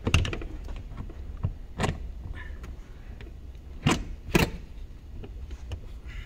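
A handful of sharp knocks and clunks as the roof's hydraulic pump unit is handled and set back into its mount in the car's trunk, two of them close together about four seconds in.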